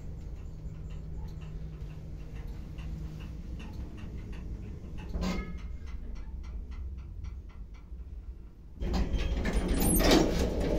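Passenger elevator car riding with a steady low hum, a loud clunk about five seconds in, then a run of quick, even ticks. Near the end a louder, rougher noise sets in as the car doors open.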